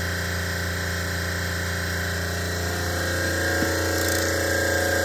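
Copeland refrigeration compressor running steadily with an even mechanical hum, getting slightly louder about three seconds in.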